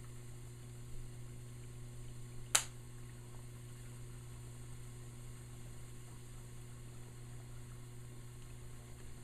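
Quiet dishwasher running with a low steady hum, and one sharp click about two and a half seconds in.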